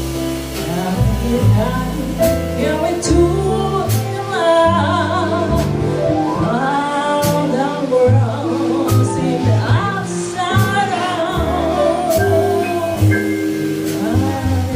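A singer with a jazz-style band: a melody sung with vibrato over a bass line, with cymbal strokes.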